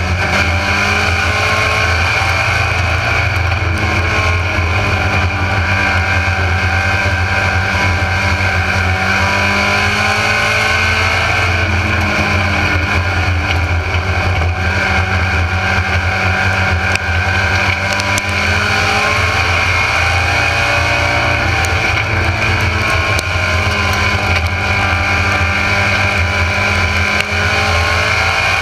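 Mini stock race car's engine at racing speed on a dirt oval, heard from inside the car. The pitch rises and falls in repeated waves as the car accelerates and then lifts.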